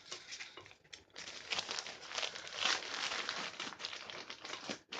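A packed dome tent and its wrapping being handled by hand, crinkling and rustling. The sound starts about a second in and stops just before the end.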